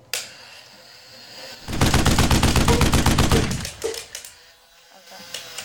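A single sharp bang, then about a second and a half in a burst of rapid, evenly spaced machine-gun-like shots lasting about two seconds before tailing off.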